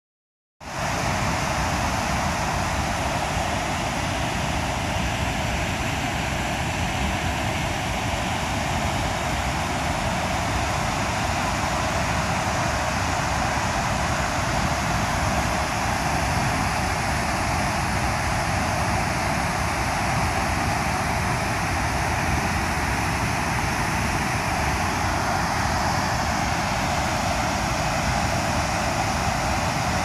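Nugget Falls, a large waterfall, pouring down a rock face: a steady, unbroken rush of falling water. It starts about half a second in.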